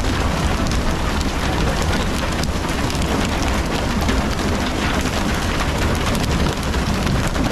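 Water spray from a pole-and-line tuna boat's sprayers hissing and pattering onto the sea surface like heavy rain, over a steady low rumble, with occasional brief knocks.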